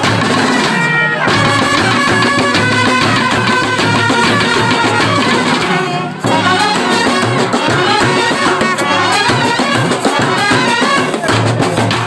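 Kerala band set playing: trumpets and other brass carry a melody over many band drums beaten in a fast, driving rhythm. The music breaks off briefly about halfway through, then comes straight back in.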